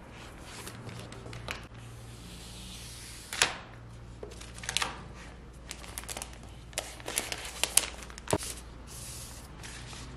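Handling noise from unboxing an iPad Pro: the protective wrap rustling as it is peeled off the tablet's back, with sharp clicks and taps of the tablet and cardboard box, the loudest about three and a half seconds in and in a cluster near the end. A faint steady hum runs underneath.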